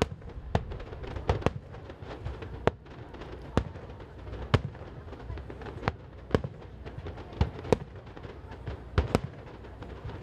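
Aerial fireworks shells bursting in irregular succession: about a dozen sharp bangs in ten seconds, some in quick pairs, over a continuous low rumble.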